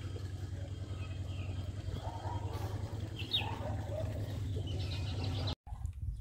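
Small birds chirping a few times over a steady low outdoor rumble. Near the end the sound cuts abruptly to soft clicks of a puppy lapping water.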